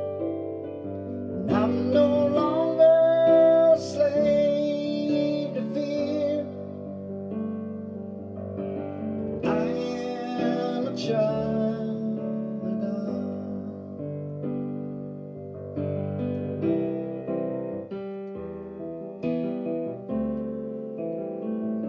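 Digital keyboard played with an electric-piano sound: held chords under a melody line.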